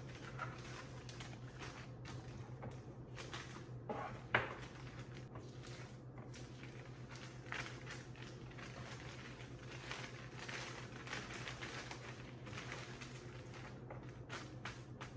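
Plastic poly mailer bag crinkling and rustling as a folded T-shirt is slid inside, in short irregular handling noises with a louder rustle about four seconds in, over a steady low hum.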